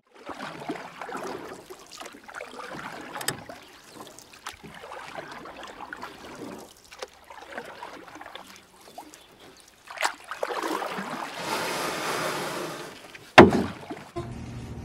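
Classroom room noise: irregular rustling and scraping, pencils on paper and children moving at their desks, with scattered light clicks and knocks. A denser stretch of rustling comes about ten seconds in, and a single sharp knock is the loudest sound, about thirteen seconds in.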